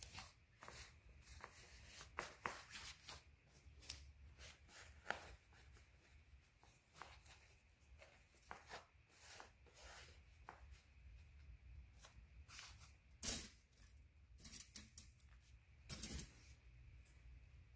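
Satin fabric rustling as hands pull and smooth it over a padded tufted frame, in short irregular swishes, with a louder one about three-quarters of the way in and another near the end.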